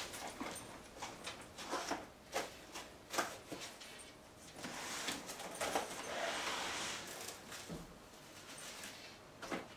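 Clear plastic cling film crinkling and rustling as it is stretched and pressed down over a bowl of bread dough, with scattered light clicks and a longer rustle about halfway through.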